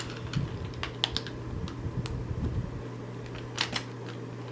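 Small plastic LEGO bricks clicking and clattering irregularly as they are picked through and handled, with low handling bumps in the first few seconds.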